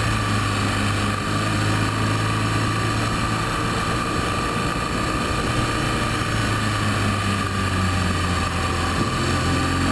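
BMW R1200GS Adventure's flat-twin engine running steadily as the motorcycle rides downhill through bends, with a constant low hum under wind and tyre-on-asphalt noise on the low-mounted camera's microphone.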